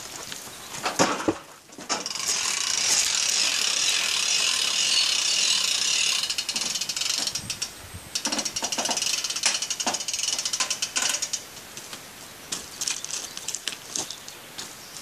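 Ratchet of a KO Mover anti-backing device on a galvanised cattle crush clicking rapidly for about six seconds, its pawl letting the push bar move forward but not back. Then irregular metal rattles and scattered clanks from the crush.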